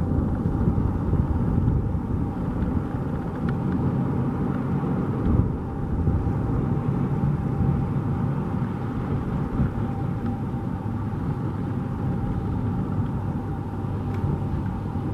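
Bombardier Q400's two Pratt & Whitney PW150 turboprops and propellers running at climb power as the plane climbs away: a steady low rumble with a held whine, easing slightly near the end.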